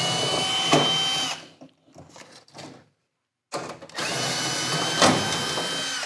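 Cordless drill/driver running twice with a steady high motor whine, about a second and a half and then about two and a half seconds, as it backs out the screws holding a furnace control board assembly. There are a few faint clicks in the pause between the two runs.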